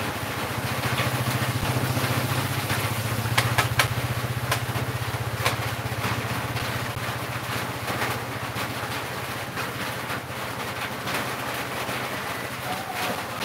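An engine running steadily, strongest through the first half and then fading somewhat, with a few sharp clicks a few seconds in.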